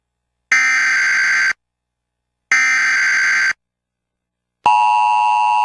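Emergency Alert System tones. Two harsh, screeching bursts of SAME header data, each about a second long and two seconds apart, are followed from about two-thirds of the way in by the steady two-tone EAS attention signal.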